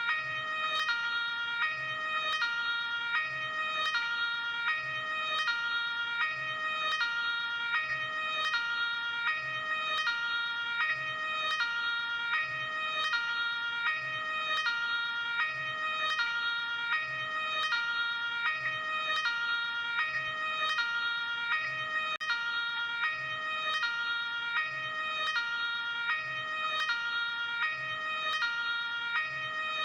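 Luxembourg ambulance two-tone hi-lo siren, switching steadily back and forth between a high and a low note at an even rate.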